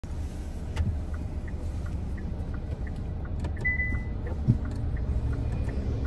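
Steady low rumble of a car on the move, with faint ticks and short high chirps, and one brief high tone about three and a half seconds in.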